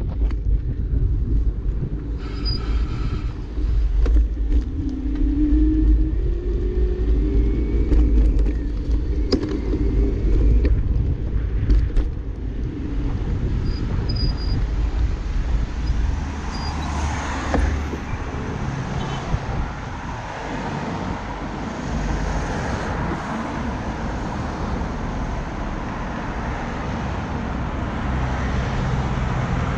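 Wind rumbling on the microphone of a moving bike camera, with a few small rattles, then road traffic from about halfway through: cars driving past at a junction.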